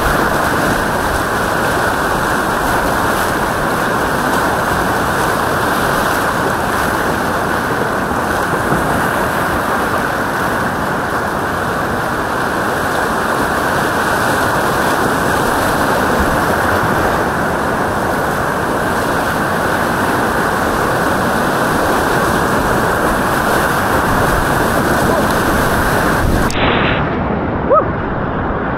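River whitewater rapids rushing loudly and steadily around a kayak, heard close up from the boat. A brief sharp hit stands out near the end.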